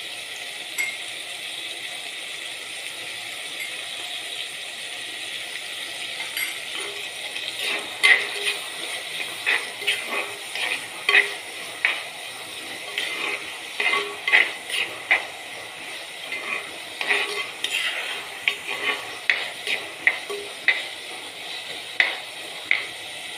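Shallots, green chillies and tomatoes sizzling in oil in a chatti, with a steady frying hiss. From about seven seconds in, a metal spoon stirs and scrapes against the pot in quick, irregular clinks.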